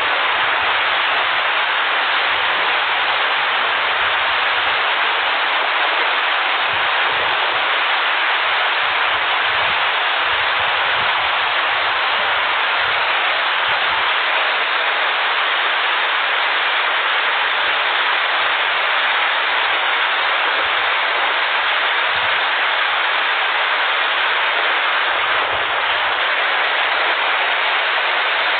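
Flash floodwater rushing in a steady, unbroken rush of water noise.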